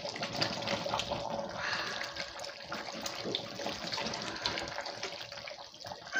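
Pot of thick atama soup being stirred with a wooden spatula: a steady wet churning of the simmering soup, with small scattered clicks and knocks of the spatula against the aluminium pot.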